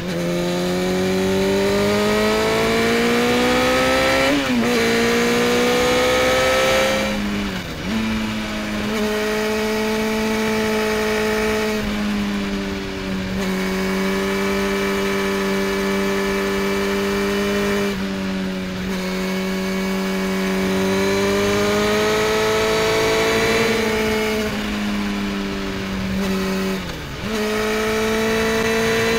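Motorcycle engine heard from on board the bike: it revs up with a rising pitch, drops sharply at gear changes about four and seven seconds in, then runs at a steady pitch while cruising, with another dip and rise near the end.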